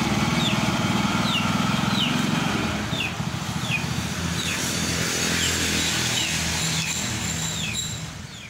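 Small motorcycle engine running as the bike pulls away. A high falling chirp repeats about twice a second over it, and everything fades out near the end.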